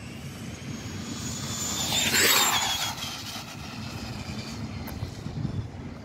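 1/10 RC buggy's brushless motor at full throttle racing past: a high electric whine that rises and grows louder, peaks about two seconds in with a rush of noise, then drops in pitch and fades as the car goes by.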